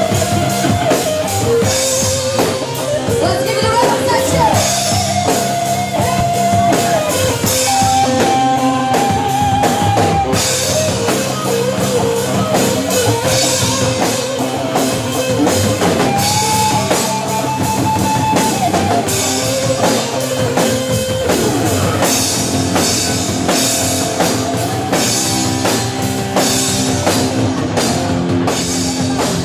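Live rock band: an electric guitar plays a melody of long held notes with vibrato over bass guitar and a drum kit.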